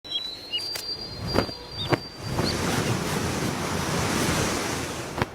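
A rushing, wind- or surf-like noise swells up about two seconds in and holds for about three seconds, cutting off with a click. Before it come a few short high chirps and sharp clicks.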